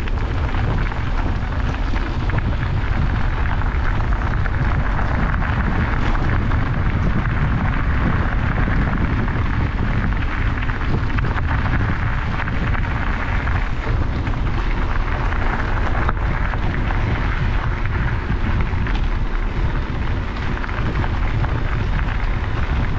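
Wind buffeting the microphone of a camera on a moving bicycle, a steady rumble, with the tyres rolling over a gravel track.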